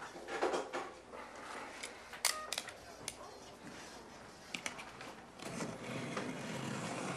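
Things being handled on a desk: a few sharp clicks and knocks in the middle, with rustling near the start and again through the last couple of seconds as something is opened.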